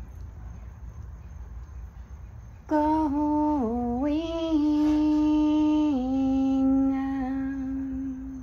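A woman's voice singing slowly in long held notes, starting about three seconds in, over a low steady rumble.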